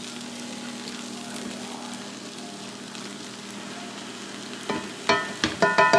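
Chopped vegetables and mushrooms sizzling steadily in a butter roux in a cast iron skillet while being stirred with a wooden spatula. Near the end comes a quick run of sharp knocks and ringing clinks.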